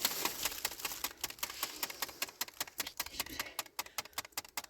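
Rapid, even clicking, about eight sharp clicks a second, growing fainter toward the end.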